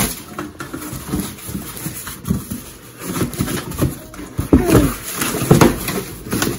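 A cardboard shipping box being handled and opened: its flaps pulled apart, with short scrapes, rustles and knocks of cardboard. A few short pitched vocal sounds come in a little past the middle.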